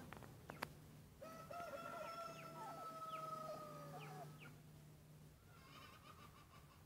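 Two sharp clicks in the first second, then a rooster crowing once, faintly: one long held call of about three seconds, followed by fainter broken calls.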